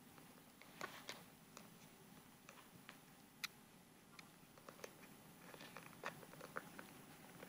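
Faint clicking and crunching from a cat high on catnip biting and clawing at a white disc on carpet: scattered clicks, with a quick run of them near the end.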